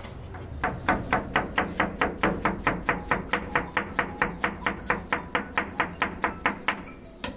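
A knife chopping salad vegetables on a cutting board, in a rapid, steady run of knocks about four or five a second, then one louder knock near the end.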